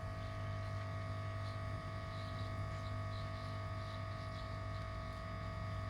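Steady electrical hum, deep, with a few fixed higher tones above it, unchanging throughout.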